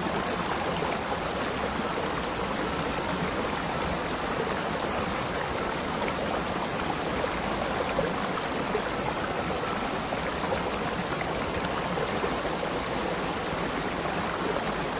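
Shallow river running over rocks in a riffle: a steady rush of flowing water.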